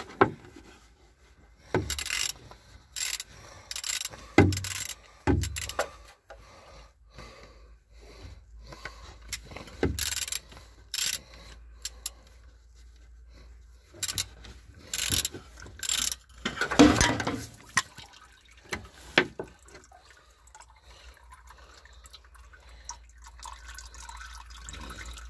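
Sharp metal clanks and knocks of a long wrench working the engine oil filter loose, then engine oil dripping from it over the parts below in the last few seconds.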